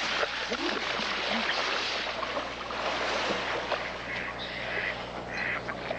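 Water splashing and churning as people thrash about in it, a steady rushing noise.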